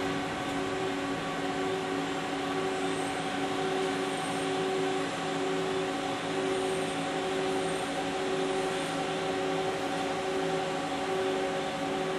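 Mori Seiki ZL-15 CNC lathe running: a steady machine hum made of several fixed tones over a hiss, with one tone pulsing on and off about once a second.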